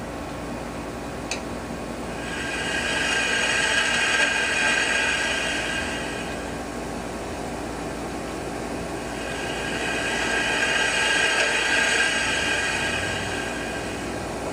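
Hiss and static from a Heathkit T3 signal tracer's speaker, heard as a playback through computer speakers. It swells and fades twice as the gain control is turned up and down, with a small click about a second in. The loud crashy static is gone now that a grid leak resistor and 0.01 µF capacitor sit on the 12SH7's control grid, but a secondary problem can still be heard lurking in the remaining noise.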